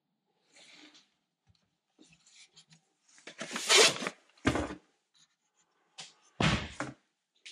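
Rustling and clattering as a fabric-cased battery booster is pulled off the shelf of a wall cabinet, with a dull thump a little after halfway. Near the end the cabinet door is pushed shut with a thump.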